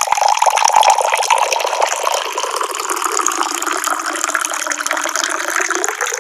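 Tap water pouring in a steady, continuous splashing stream.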